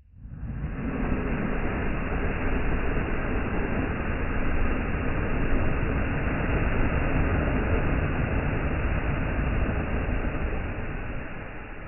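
Steady rushing of strong wind, heaviest in the low end. It starts suddenly and eases off near the end.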